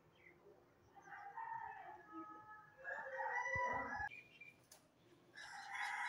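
Six-month-old Alexandrine parakeet calling: a drawn-out call builds from about a second in and is loudest around three to four seconds in, and another call follows near the end.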